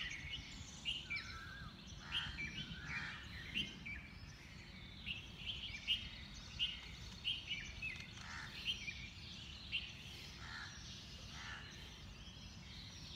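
Birds chirping and calling in many short notes, one after another, over a steady low background rumble.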